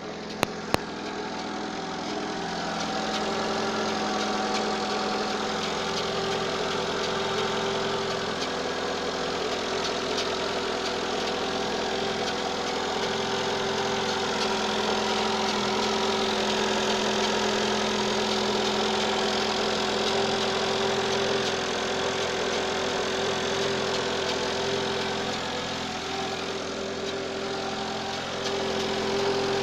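Citroën AX 1.0-litre engine idling steadily, with a rattle coming from the right side of the engine bay whose cause is unknown. There are two sharp clicks right at the start.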